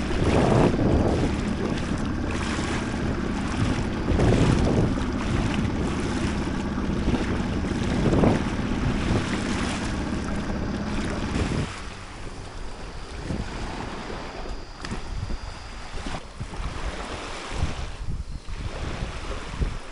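Water rushing and splashing along the hull of a moving dinghy, with wind buffeting the microphone and a faint steady motor hum underneath. About twelve seconds in this gives way to quieter, gusty wind noise.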